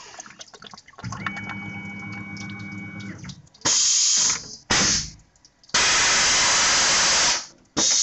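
A steady machine hum with a high tone for about two seconds, then four sharp hissing blasts of compressed air that start and stop abruptly. The longest blast lasts over a second and a half.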